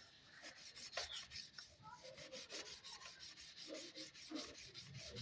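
A worn brush scrubbing rust off a bicycle wheel rim: faint, irregular rubbing strokes.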